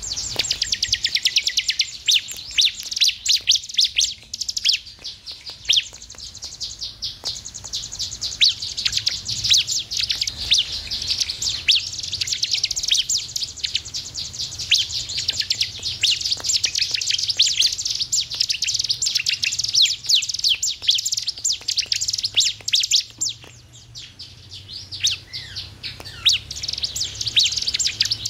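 Bar-winged prinia (ciblek) singing: a rapid, continuous high chatter of chirps, with a brief lull near the end.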